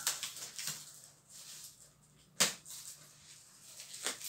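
A rolled rug being unwrapped and handled: scattered rustles and short knocks, with one sharp knock about two and a half seconds in and another near the end.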